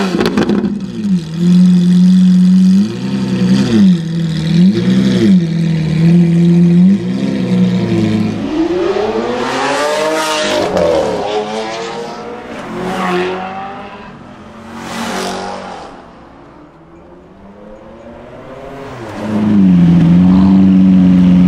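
Lamborghini Aventador 6.5-litre V12 engines revving: short blips that are held and drop back several times, then revs rising and falling as the cars pull away, with a few sharp cracks. Near the end, revs are held high and steady, as on launch control at a drag start.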